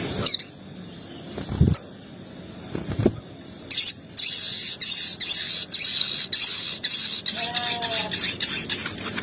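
Sogon bird calling: a few sharp, high chirps, then from about four seconds in a rapid chattering run of 'cuit cuit' notes.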